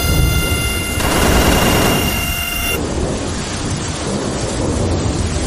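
Thunderstorm effect: steady rain hiss over low rumbling thunder. A thin high whine sits over it and cuts off abruptly about three seconds in.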